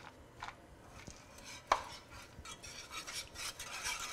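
Wire whisk stirring shredded cheese into a thick cheese sauce in a saucepan: soft scattered ticks, one sharp click against the pan, then quick scraping strokes in the last couple of seconds.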